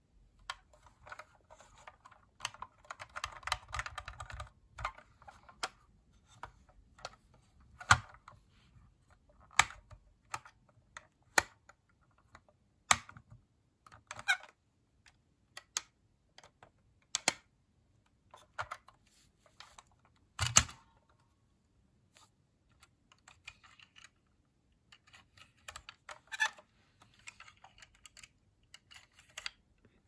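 Hard plastic parts of a vintage Kenner M.A.S.K. Jackhammer toy vehicle being worked by hand: irregular sharp clicks and snaps as its door, roof panel and catches open and close, with soft handling rustle in between. The loudest snap comes about two-thirds of the way through.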